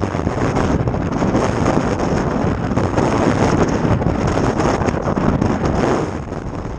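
Loud wind buffeting the microphone: a gusting, rumbling rush that eases a little near the end.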